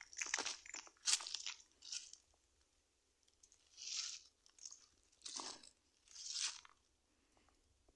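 Footsteps crunching on dry leaf litter and dirt: a quick run of crunches at first, a short pause, then a few single crunches about a second apart.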